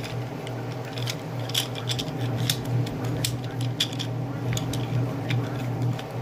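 Irregular sharp plastic clicks and clacks of a hand-held Rubik's-cube-like puzzle fidget being twisted, over a steady low hum.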